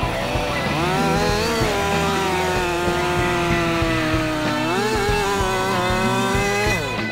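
Gas chainsaw at full throttle cutting a log. It revs up at the start, holds a steady high pitch through the cut, dips and recovers about five seconds in, then falls off as the throttle is released near the end.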